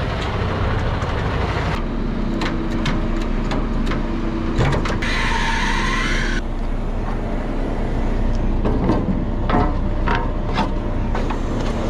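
Diesel engine of a 7-tonne crane truck running steadily at idle, with scattered clicks and knocks of handling and footsteps on gravel. A hiss lasting about a second and a half comes about five seconds in.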